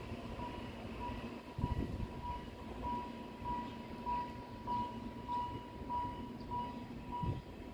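Alishan Forest Railway train running with a low, uneven rumble and occasional knocks, while a short electronic beep repeats evenly about one and a half times a second.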